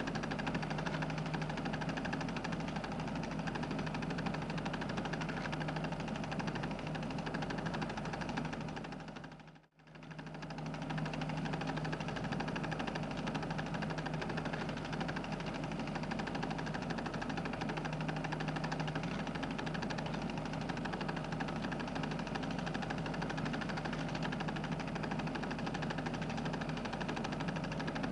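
Steady mechanical hum and whirr with no speech or music; it fades out briefly about ten seconds in and fades straight back in.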